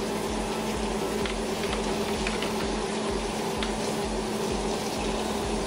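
Steady low hum with a hiss, with a few light taps as cooked sausage and potatoes are moved around by hand in an aluminium foil tray.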